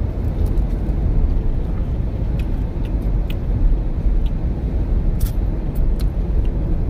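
Steady low rumble of a car driving on a wet road, heard from inside the cabin, with scattered sharp ticks of raindrops striking the windscreen.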